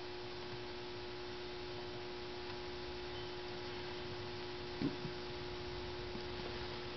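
Steady low hum over a faint even hiss, with one brief short sound about five seconds in.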